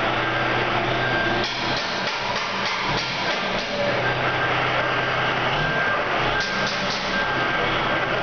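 Diesel engine of an International semi-tractor running as the truck maneuvers, a steady low hum, with short high beeps recurring at intervals.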